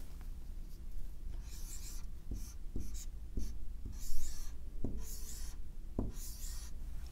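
Dry-erase marker writing on a whiteboard: a series of short strokes, with light taps of the marker tip against the board between them.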